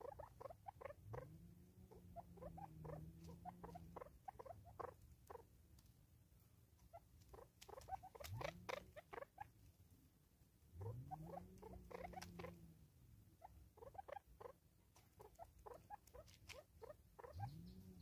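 Spurfowl beaks pecking at a plastic-bottle seed feeder on a wooden stump: faint, irregular quick taps and scratches in clusters. A few low tones that rise and fall, each about a second long, sound now and then.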